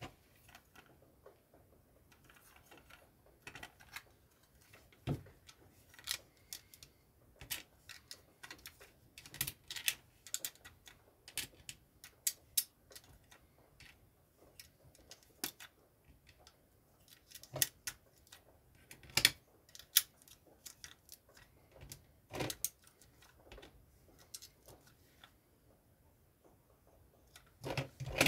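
Plastic LEGO bricks clicking and clattering as they are handled and snapped together on a LEGO baseplate: irregular sharp clicks, some louder than others, with short pauses between them.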